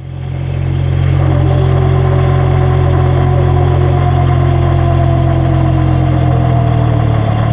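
Vehicle differential with one or more broken ring-gear teeth, recorded close to the differential housing while the car drives: a loud low drone that swells in over the first second, with a fainter whine slowly falling in pitch above it.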